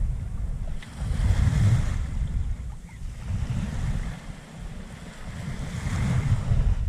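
Wind buffeting the microphone in uneven gusts, a low rumble that swells and fades, over a thin hiss of sea.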